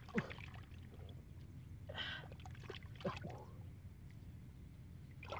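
Hands sloshing and groping in muddy water in a small hole in the ground, with a few short splashes.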